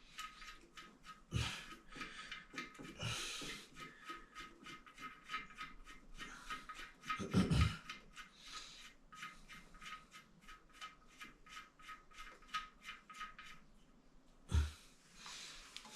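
Faint rapid clicking, about four clicks a second for several seconds, with a few louder knocks in between: hand tools at work during plumbing removal.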